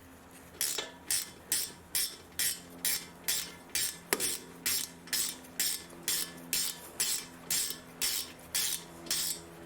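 Ratchet wrench swung back and forth, its pawl clicking in short rasping bursts about two and a half times a second, as the brake caliper's Allen bolts are run in and tightened. One sharper metal click about four seconds in.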